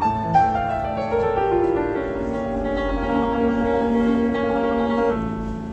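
Grand piano playing, a run of notes stepping downward and then held chords, ending a little before the end.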